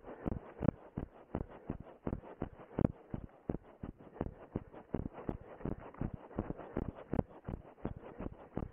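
A runner's footsteps on grassy ground, picked up by a camera worn on the runner's body: a steady, fast run of dull thuds, several a second, jolting the microphone with each stride.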